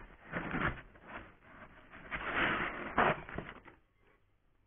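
White foam packing insert and cardboard box being handled: rubbing and scraping in several surges, with a few knocks, stopping just before the end.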